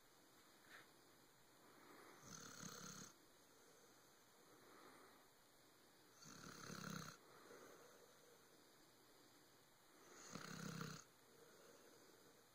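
Dog deeply asleep, snoring faintly: three snores about four seconds apart, each under a second long, with softer breathing between them.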